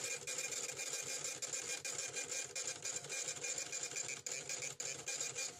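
A small machine running with rapid, continuous mechanical clicking and a steady whir; it stops abruptly at the end.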